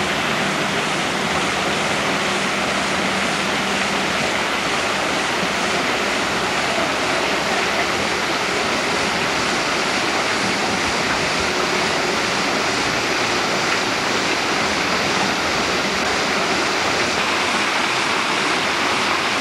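Artificial waterfall pouring off rockwork into a pool: a steady, unbroken rush of water.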